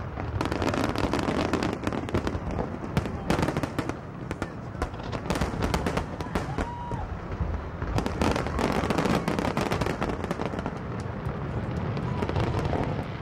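Fireworks display: aerial shells bursting, with many sharp bangs and crackles in quick, unbroken succession over a continuous rumble.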